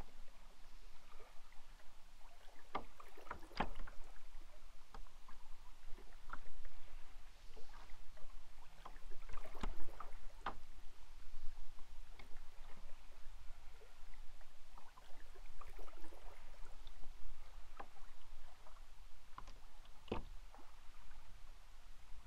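Kayak paddling on calm water: paddle blades dipping and splashing, with scattered sharp clicks and drips at irregular moments.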